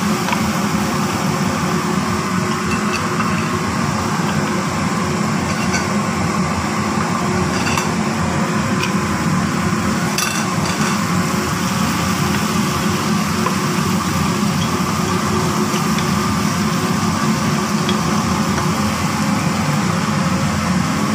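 A steady mechanical drone runs throughout under the frying of grated carrots and raisins in oil in a pan, with a few short clinks and scrapes of a wooden spatula against the pan.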